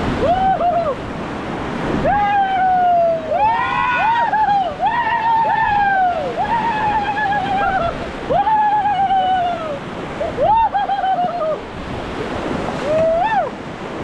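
White-water river rapid rushing and splashing steadily around an inflatable raft. Over it, rafters let out repeated high whoops and yells, each rising then falling in pitch, several overlapping through the middle and a last one near the end.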